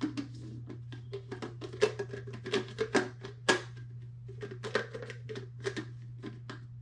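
Plastic lid of a Takeya cold brew pitcher being clicked open and shut over and over while working out how it pours: many quick, irregular clicks and snaps, several a second. A steady low hum runs underneath.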